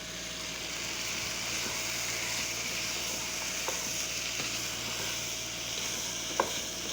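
Chicken, tomato and spice base frying in a pan with a steady sizzle while it is stirred, with two light clicks partway through.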